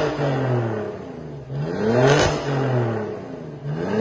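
BMW E60 525i's inline-six being revved through an A Performance cat-back exhaust with its remote-controlled exhaust valve switched on. The revs climb and fall away about once every two seconds: one dying off at the start, one peaking about halfway, and a new rise near the end.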